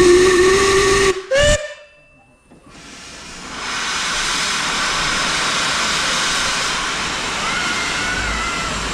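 Narrow-gauge steam locomotive's whistle: one long blast of about a second, then a short, higher toot. After a moment's quiet, a steady hiss of steam swells up from about three seconds in and holds.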